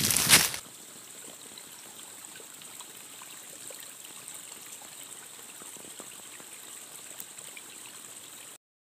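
Footsteps crunching in dry fallen leaves for the first half-second, then the faint, steady trickle of a small woodland spring running among mossy stones; it stops abruptly near the end.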